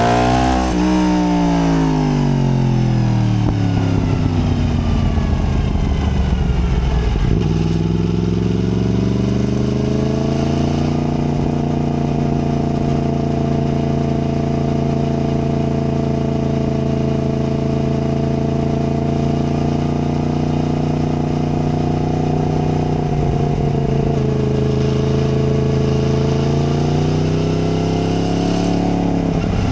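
Yamaha MT-10's crossplane inline-four engine heard from the rider's seat. Its revs fall away steadily for several seconds, pick up again about seven seconds in and hold steady at a cruise, then rise once more near the end.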